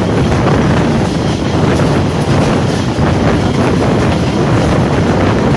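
Loud, steady wind buffeting a microphone held outside a moving passenger train, over the rumble of the coaches running along the track.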